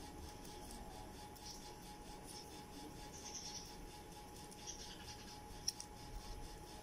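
Children's scissors faintly snipping paper in a few soft cuts, with the paper rustling, and one sharp click of the blades near the end.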